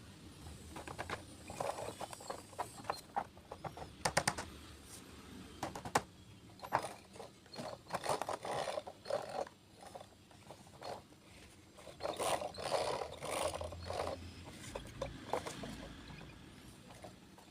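Plastic toy dumper truck being handled and worked: irregular clicks and knocks with short bouts of scraping, busiest a few seconds before and after the middle.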